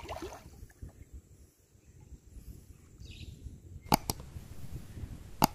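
Shallow water splashing briefly as hands work a fishing net, over a steady low wind rumble on the microphone. A few sharp clicks come near the end: two close together, then one more.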